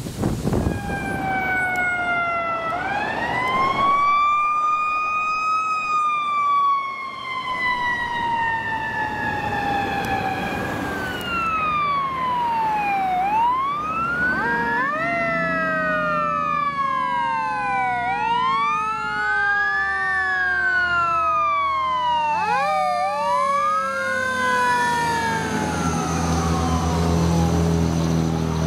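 Fire apparatus electronic sirens wailing: first one slow wail that rises for a few seconds and falls for several more, then two sirens sweeping up and down faster and out of step with each other. Near the end the low rumble of a passing fire engine comes up under the sirens.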